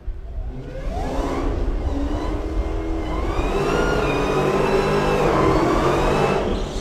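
A Dodge Challenger SRT Demon 170's supercharged 6.2-litre HEMI V8 revs up in the first couple of seconds, then is held at high revs and grows loudest near the end. It is doing a burnout, with the rear tyres squealing and smoking.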